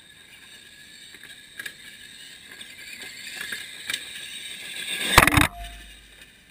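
R/C monster trucks racing toward the microphone, their electric motors whining and the sound growing louder over about five seconds, with a few sharp ticks along the way. About five seconds in comes a short, loud clatter as a truck strikes the ground-level camera and knocks it askew, and then the sound cuts off.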